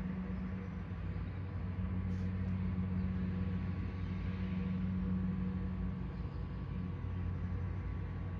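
A steady low mechanical hum over a faint hiss, unchanged throughout.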